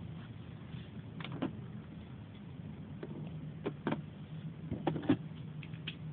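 Fang Leone Beyblade spinning on its Wide Defense 2 tip in a stadium: a steady low whir with about ten irregular sharp clicks as the wobbling top knocks about, losing balance.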